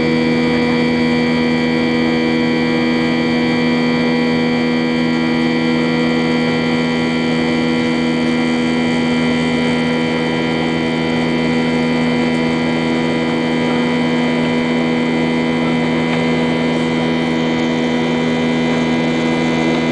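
Boeing 737-800's CFM56-7B jet engines heard from inside the cabin while climbing out after takeoff: a loud, steady drone with several held tones over an even rush of air.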